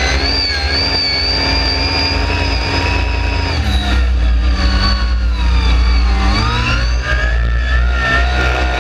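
Off-road vehicle engine running hard over sand, its pitch dropping about three and a half seconds in and climbing again around six seconds, over a heavy low rumble.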